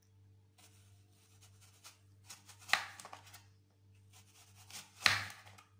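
Kitchen knife slicing through an apple into thin rings: soft scraping as the blade works through the fruit, then two sharp knocks as the blade comes down through the apple, one about halfway through and one near the end.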